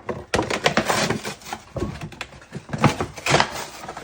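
Aluminium soda cans knocking together and scraping against a cardboard 12-pack box as they are pulled out, a quick run of knocks and rustling.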